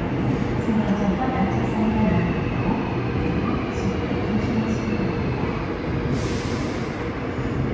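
Seoul Subway Line 7 electric train pulling into an underground station behind platform screen doors, a steady rumble of wheels and running gear as it slows. A short hiss comes about six seconds in.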